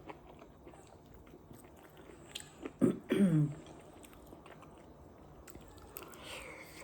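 A person chewing and eating close to the microphone, with faint scattered mouth clicks. A short hum of the voice breaks in about three seconds in.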